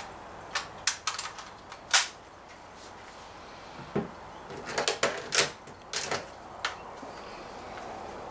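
Small irregular clicks and taps of steel BBs being loaded into the magazine of a Daisy 340 spring-powered BB pistol, with the loudest click about two seconds in and a quick cluster of clicks around the middle.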